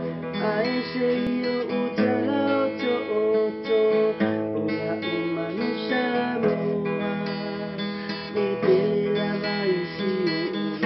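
Man singing a song to his own strummed acoustic guitar, the melody gliding over steady chords.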